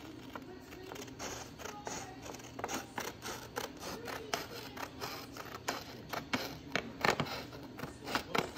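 Scissors snipping along the edge of a sheet of printed sublimation paper, a steady run of short cuts about three a second, getting louder in the second half.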